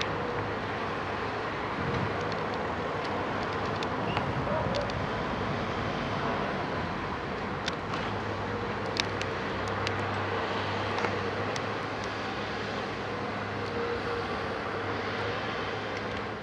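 Terex hydraulic excavator's diesel engine running steadily as its sorting grab works through the roof beams, with scattered sharp cracks and knocks of timber. The sound cuts off suddenly at the end.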